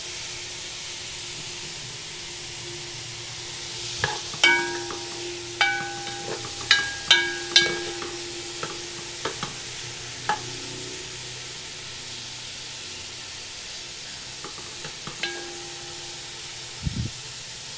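Tomatoes, onion and garlic sautéing in hot oil with a steady sizzle, while a utensil stirring them knocks against the pan. A cluster of sharp strikes comes about four to eight seconds in, with a few more later, and each one sets the pan ringing briefly.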